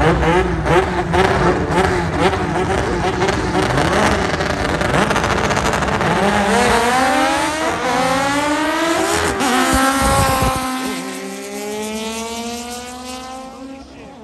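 Race car's engine running loud and rough at first, then the car accelerating hard away down the drag strip. Its engine note climbs through the gears, with a shift change about nine and a half seconds in, and fades into the distance near the end.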